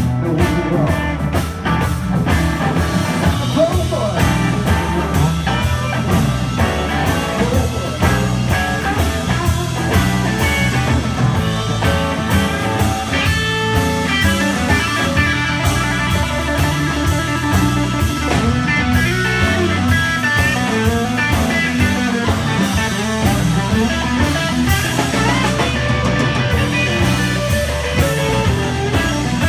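Live blues-rock band playing an instrumental stretch with no singing: electric guitars over bass guitar and drum kit.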